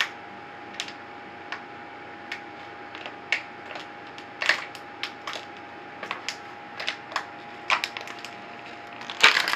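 Thin plastic water bottle crackling as it is sucked in and crumpled while someone drinks from it. The crackles come as short irregular clicks, about one or two a second, with a louder cluster near the end.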